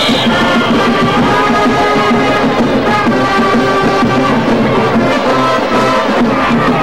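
Brass band playing a tune, with trumpets and trombones over a steady low beat.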